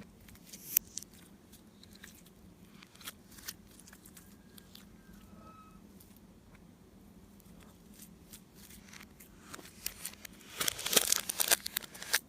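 Slime being mixed and squeezed by hand: scattered sticky clicks and pops, then a dense run of loud crackling about ten seconds in.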